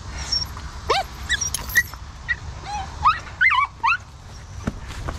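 Puppies whining and yipping: a string of short, high calls that sweep up and down in pitch, bunched in the first four seconds.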